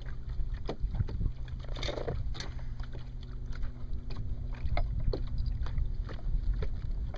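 Wind buffeting the microphone over a steady low hum from the boat, with scattered light clicks and rustles as hands work small fishing tackle.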